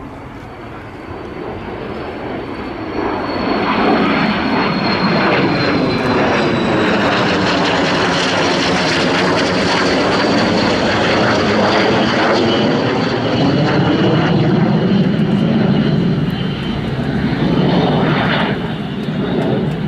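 Aero L-39 Albatros jet trainers' turbofan engines flying past: a jet roar that builds over the first few seconds and then stays loud, with a high whine and a sweeping, phasing whoosh as the jets pass.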